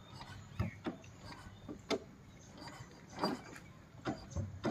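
A few faint, irregular knocks and clicks from the man handling the diesel Royal Enfield Bullet at its handlebar. The engine is not running.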